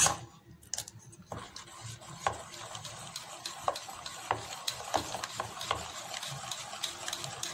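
A steel ladle stirs thin paratha batter in a steel bowl, scraping and clinking against the bowl with many small knocks. There is a sharp clink right at the start.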